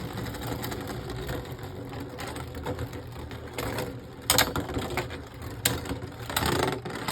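Beyblade Burst spinning tops, one on a rubber driver, whirring and grinding against each other in a plastic stadium, with sharp clacks of collision about four and five and a half seconds in.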